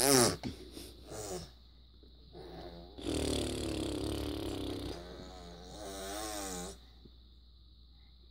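A toddler's voice: a brief high squeal at the start, then a rough, raspy vocal noise lasting about two seconds from about three seconds in, and a wavering hum just after it. None of it is words.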